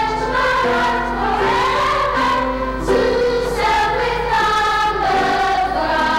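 Music with a choir singing sustained chords.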